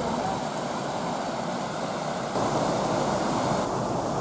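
Steady rush of water pouring over a small weir into a stream; the rush jumps louder about halfway through.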